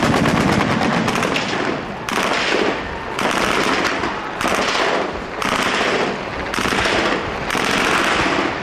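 Gunfire in a street battle: rapid, closely packed shots in repeated bursts about a second long, one after another.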